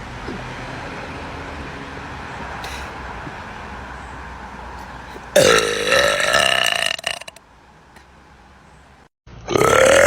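Two long, loud burps from women. The first comes about five seconds in and lasts under two seconds, with a pitch that dips and rises. After a brief silence, a second starts near the end. Before the first there is only quieter steady background noise.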